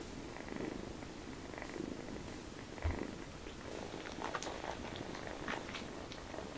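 Cat purring steadily in slow swells while kittens nurse, with light clicks coming in from about four seconds in.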